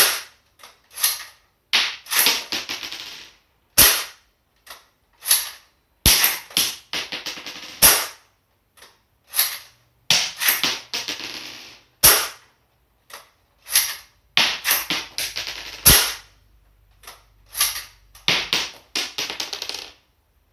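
Airsoft sniper rifle fired about six times, sharp cracks two to four seconds apart, with clicks and short rattles between the shots.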